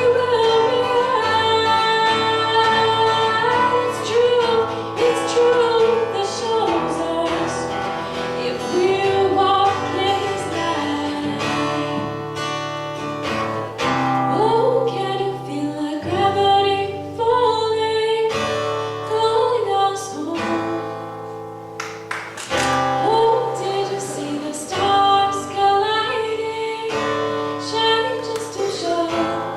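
A female voice singing a song to guitar accompaniment.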